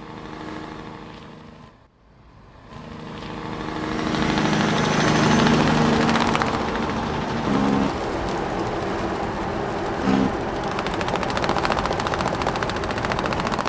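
A large engine running. It swells louder over a couple of seconds near the start, as if revving up or coming closer, then holds steady.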